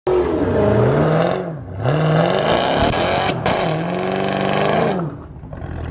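Dodge Challenger Hellcat and Chevrolet Camaro V8 engines revving hard in burnouts, rear tyres spinning. The engine pitch climbs and drops about three times, with a short break a little past three seconds.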